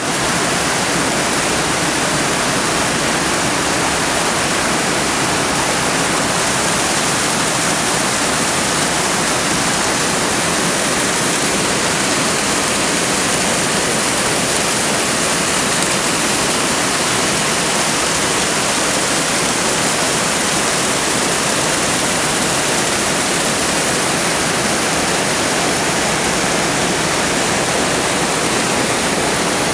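Small waterfall rushing over boulders into a pool, heard close up: a steady, loud rush of white water.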